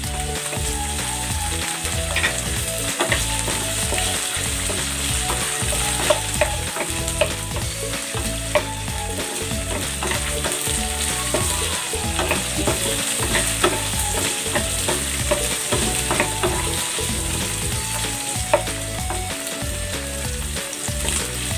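Button mushrooms and garlic sizzling in hot oil in a nonstick frying pan, stirred with a wooden spatula that scrapes and taps against the pan now and then.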